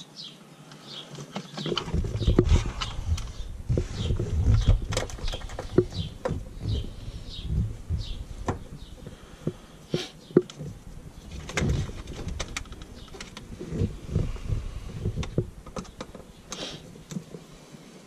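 Phillips screwdriver driving the screws at a car's shifter base, with irregular small clicks and knocks of metal and plastic and low thumps and rubbing of hands working in the centre console.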